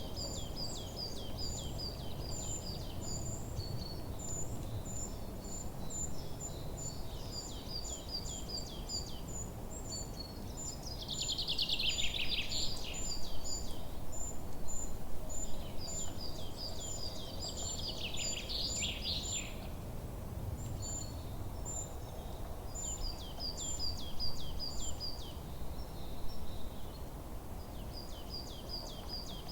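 Forest birds singing: a steady run of short, high repeated chirps, with two louder, fuller song phrases from another bird about a third of the way in and again past the middle. A steady low background rumble lies underneath.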